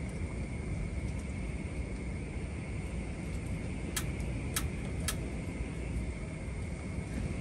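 Steady low outdoor rumble with a thin, steady high whine over it, and three sharp clicks a little past the middle, about half a second apart.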